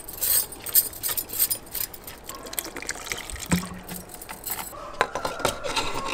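Water poured into a pressure cooker onto chopped chayote, dal and shallots, trickling and splashing, followed by a few sharp clicks and knocks of the cooker's lid being fitted near the end.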